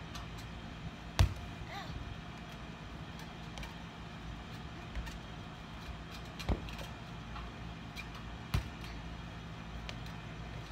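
Tetherball being struck: three sharp, loud thumps a few seconds apart, with a few fainter knocks, over a steady outdoor hum.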